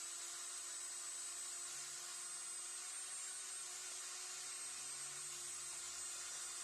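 Electric drill spinning a small cylindrical wire brush, a steady high whine over a hiss.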